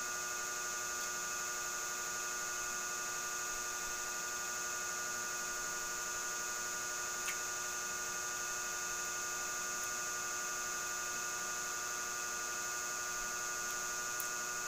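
Steady electrical hum and whine made of several unchanging tones, with a faint short click about seven seconds in.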